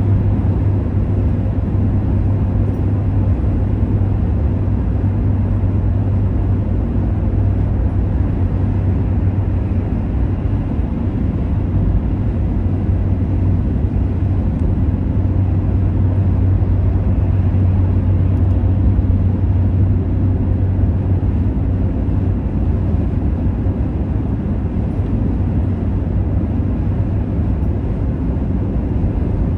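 Car cruising at motorway speed, heard from inside: a steady low rumble of tyre, road and engine noise with no changes.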